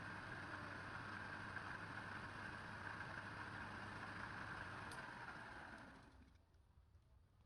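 Wood lathe running with a steady hum, then stopping and winding down about six seconds in.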